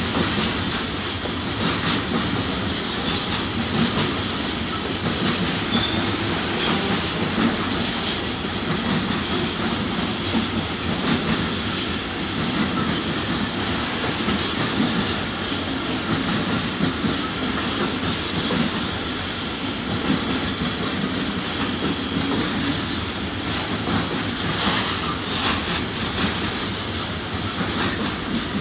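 Long freight train of intermodal container flat wagons rolling past at steady speed: continuous rumble of the wheels on the rails with the clatter of wheelsets over rail joints.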